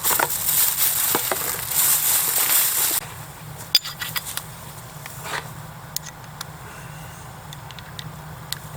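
Background hip-hop music that cuts off about three seconds in, followed by quieter outdoor background with scattered small clicks and crackles.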